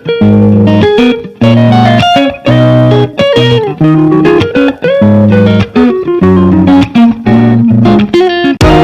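Loud guitar-led background music with a steady rhythm of plucked notes.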